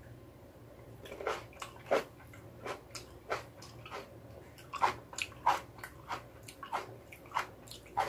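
A person biting and chewing a cherry tomato: irregular sharp mouth clicks, roughly two a second, beginning about a second in.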